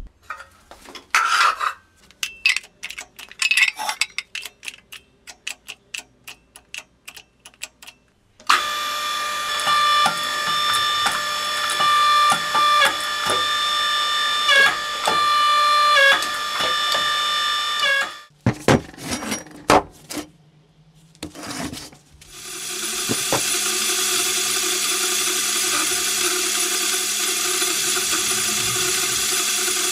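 Metal workshop sounds: first a run of sharp taps and knocks. Then a power tool runs steadily for about ten seconds, its pitch dipping briefly a few times as it bites. After a few more knocks, a louder steady machine noise starts and keeps running.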